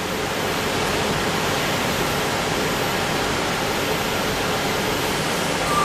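Steady, even rushing hiss of running machinery, with no rhythm or pitch to it.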